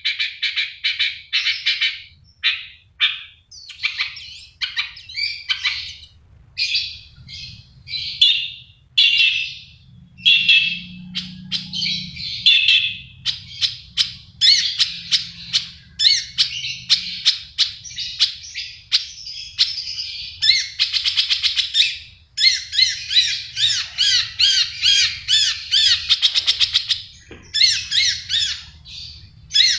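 Long-tailed shrike (cendet) singing without pause: a varied song full of mimicked calls of other birds, with short notes, chattering phrases and rapid trills that grow denser and faster in the second half.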